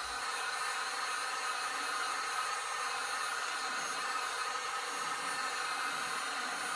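Electric heat gun running steadily, blowing hot air to warm a wheel rim so adhesive wheel weights will stick.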